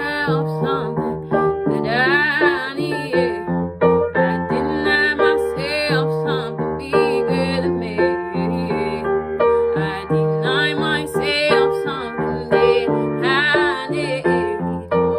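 Woman singing a slow melody with wavering vibrato over sustained keyboard chords.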